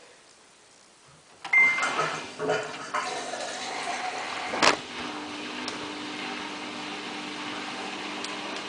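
Samsung WF8804RPA washing machine's control panel beeping once at a button press, followed by clicks and handling noise and a sharp click. About five seconds in the machine starts a steady hum as its test cycle begins.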